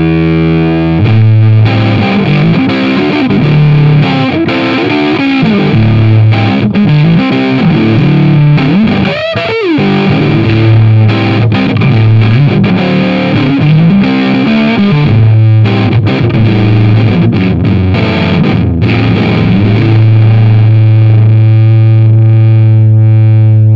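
Fender Stratocaster on its bridge and neck pickups, volume full up, played through a germanium fuzz pedal (the Fuzzfather, a Fuzz Face-style circuit) into a clean valve amp and 4x12 cabinet: a heavily fuzzed riff of long sustaining notes with a bend about nine seconds in, ending on a low note held for the last few seconds.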